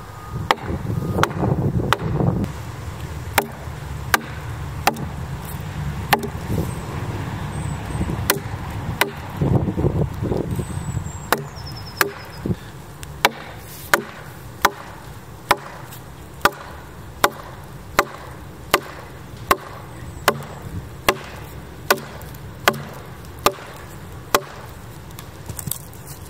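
Axe chopping into a split red oak board, one sharp strike after another: uneven at first, then settling into a steady rhythm of a little more than one blow a second.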